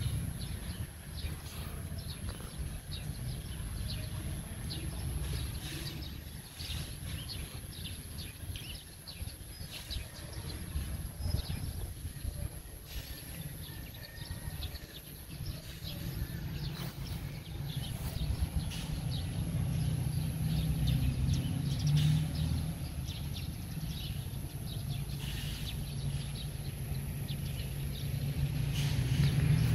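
Outdoor ambience: a steady low rumble that grows louder in the second half, with scattered short bird chirps and a faint, thin, high steady whine.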